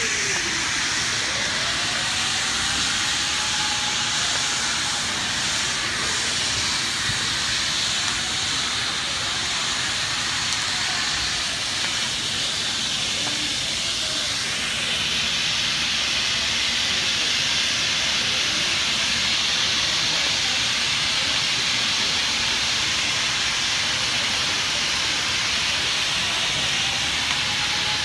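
Steady loud hissing rush from a burning building. A siren wails faintly, falling and rising, near the start and again near the end.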